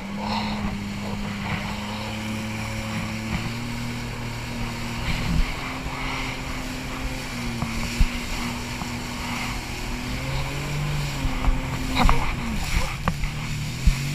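Jet ski engine running at speed, its pitch shifting a few times, over the rush of spray and wind. The hull gives a few sharp slaps against the chop.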